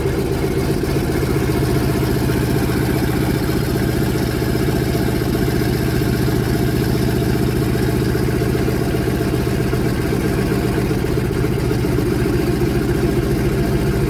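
A WW2 Sherman tank's engine running at a steady idle, a rapid, even beat of exhaust pulses that never changes in level.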